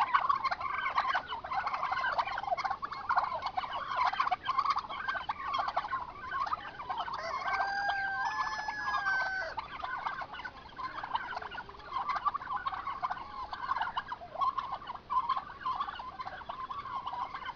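A flock of domestic turkeys gobbling again and again, their calls overlapping without a break. About halfway through, one long, held, pitched call rises above them.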